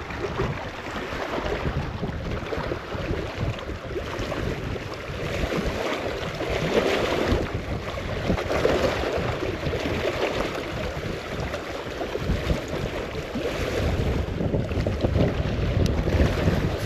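Strong wind gusting across the microphone, a rushing, rumbling noise that swells and eases in waves.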